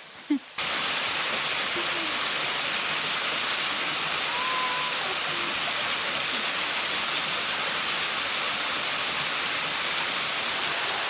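Small waterfall: a steady, even rush of falling water that starts suddenly about half a second in.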